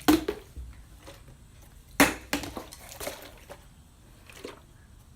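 Fidget spinners clacking against each other and a hard surface while being stacked: a sharp knock right at the start and another about two seconds in, followed by a few lighter clicks.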